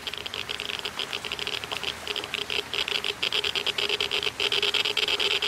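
Geiger counter clicking rapidly and irregularly, the clicks growing denser and louder: a rising count, the sign of radiation well above normal background.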